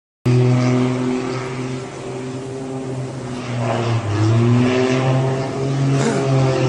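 An engine running steadily with a low, even hum. Its pitch dips briefly and climbs back about four seconds in.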